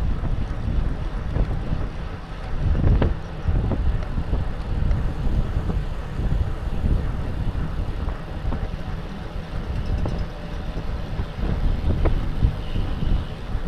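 Wind buffeting the microphone of a bicycle-mounted camera moving at about 25 mph: a steady low rumble that swells and dips, with a few sharp clicks about three seconds in and near the end.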